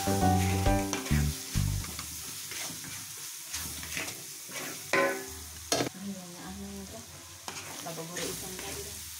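Ground spice paste of garlic, turmeric and candlenut sizzling in oil in a wok, sautéing until fragrant, while a wooden spatula stirs it and scrapes sharply against the metal now and then. Music with steady notes plays for the first second or two, then stops.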